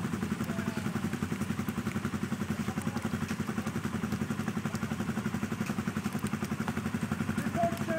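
Quad bike engine idling, with a steady, even beat. A faint voice is heard briefly near the end.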